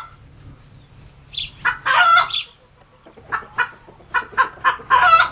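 Chickens clucking: a short call, then a longer one, then a quick run of short clucks that ends in a longer squawk.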